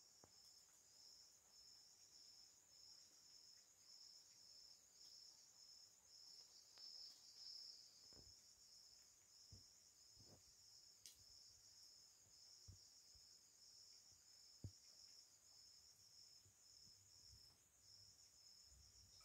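Faint insect chirring, typical of crickets: a continuous high trill overlaid by a second, lower one that pulses on and off in short repeating bursts. A few soft knocks come in the middle of the stretch.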